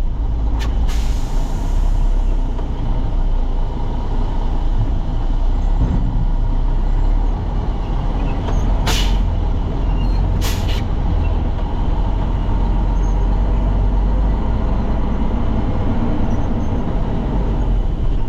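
Heavy truck's diesel engine running steadily with a deep low rumble. Two short hisses of compressed air are heard, about nine and ten and a half seconds in, typical of a truck's air brakes.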